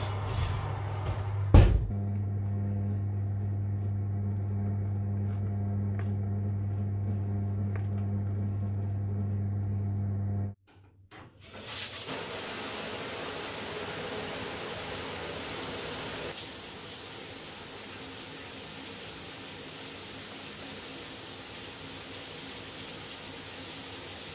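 Fan oven humming steadily, with a sharp clack as the oven door is shut about a second and a half in. The hum stops near the middle, and after a brief gap a shower runs with a steady hiss of spray that drops slightly in level a few seconds later.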